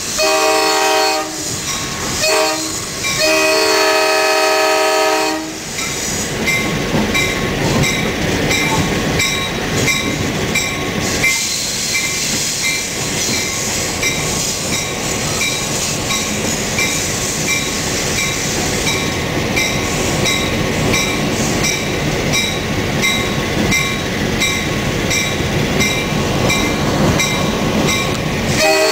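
EMD FL9 diesel locomotive's multi-chime air horn sounding a series of blasts from the cab, the last one held for about two seconds, over the running locomotive and rail noise. After it, a bell rings steadily about twice a second as the train rolls on.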